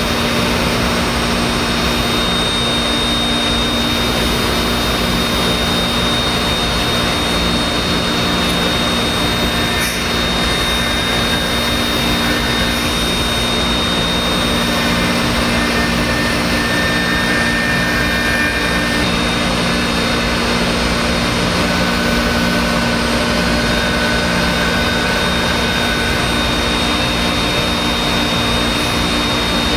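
Five-axis CNC router's spindle running steadily with a high whine as its end mill carves a wooden workpiece, over a constant low machine hum.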